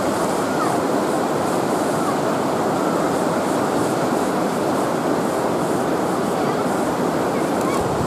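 River rapids rushing past: a loud, steady, even rush of white water.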